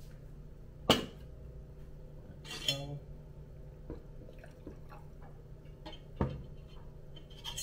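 Stainless steel gooseneck kettle and its lid being handled on a counter: a sharp metal clank about a second in, a short ringing metallic rattle about a second later, then a few lighter clinks and taps, with a couple more near the end.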